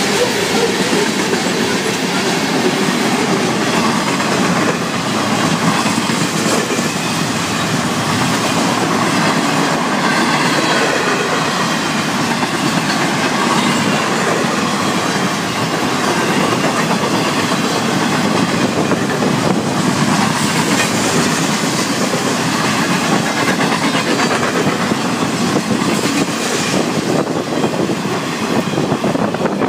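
Florida East Coast Railway freight cars rolling past, wheels clattering steadily on the rails.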